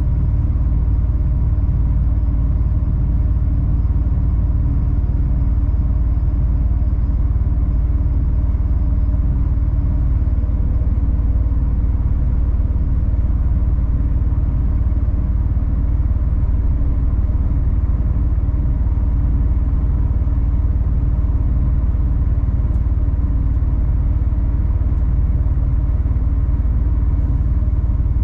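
A 26-tonne rigid lorry's engine and road noise: a steady low drone that holds unchanged throughout.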